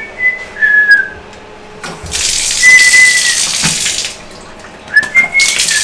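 Shower run in two short bursts, water spraying onto tile for about two seconds each time, the second starting near the end. A thin, high whistling tone comes and goes in between and during the spray.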